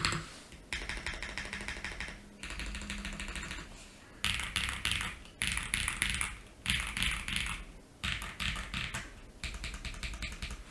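Mechanical keyboard being typed on: stock, unlubed dk Saru tactile switches in an ai03 Vega with a polycarbonate plate, plate and case foam, and GMK keycaps. Fast runs of keystrokes come in several bursts with short pauses between them. The switches are described as a bit pingy when stock.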